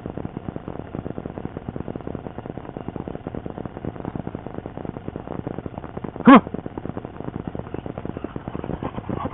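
Dogs playing rough together, with a steady crackle of rapid clicks and scuffling. About six seconds in, one dog gives a single short bark.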